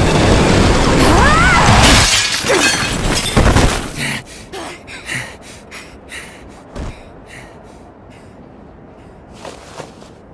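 Animation sound effects of a crash with breaking glass over music. It is loud for about the first four seconds, then drops to scattered short clatters over a low background.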